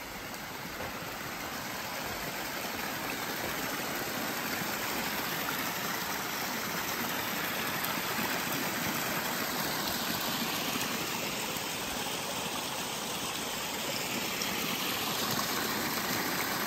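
Small mountain creek cascading over mossy rocks: a steady rush of falling water that grows louder over the first several seconds as it is approached, then holds.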